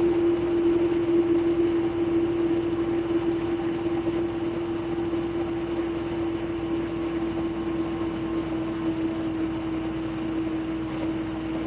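Steady drone inside a GSRTC bus, dominated by one strong hum that sinks slightly in pitch while the overall level slowly eases down.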